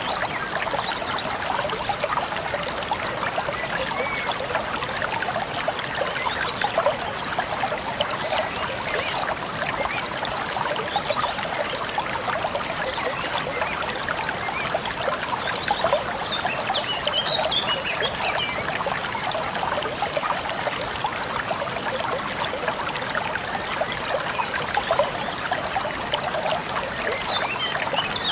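Falling water splashing steadily and evenly, with a few faint high chirps around the middle and near the end.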